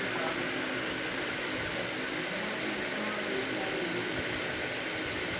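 Electric ceiling fan running: a steady, even noise that holds at one level throughout.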